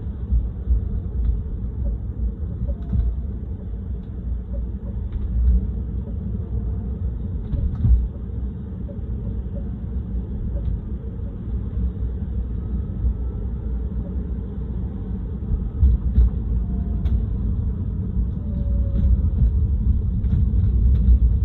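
Steady low road rumble of a new Tesla Model 3 driving at about 20–25 mph, with a few short low thumps, one about eight seconds in and a couple around sixteen to seventeen seconds. These are the kind of thump noise the owner is recording to document.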